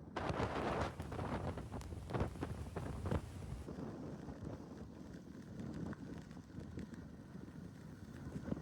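Strong gusty storm wind buffeting the microphone, loudest in gusts over the first three seconds and then settling into a steadier rush.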